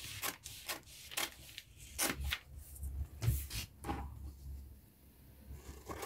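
Scissors snipping through a paper sewing pattern: a run of short, crisp snips about three a second, thinning out and going quieter about four seconds in.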